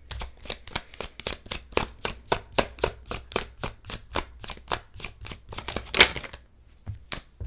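A deck of tarot cards being shuffled by hand: quick, even card clicks about five a second, ending in a louder snap about six seconds in, then one more click.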